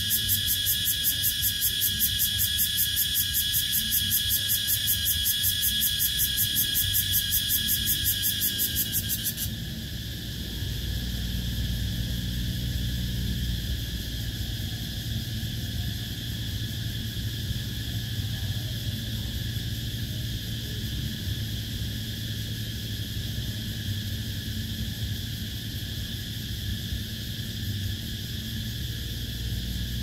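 Cicada calling with a loud, fast pulsing buzz, about four pulses a second, that stops abruptly about nine seconds in. A steadier, fainter high insect drone and a low rumble carry on underneath.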